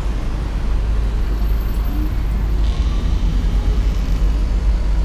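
Street traffic noise at a city intersection: passing cars over a steady, heavy low rumble.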